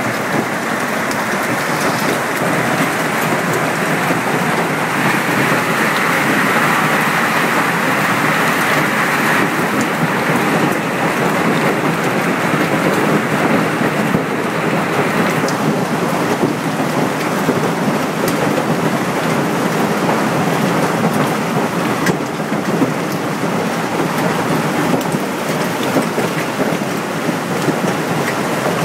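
Hailstorm with heavy rain pelting down, a loud, steady, dense clatter and hiss of hailstones and rain hitting the ground and glass, swelling briefly about five seconds in.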